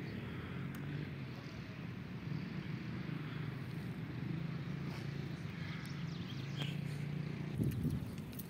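A small engine running steadily with a low hum, with light clicks and rattles over it and a louder rattle near the end.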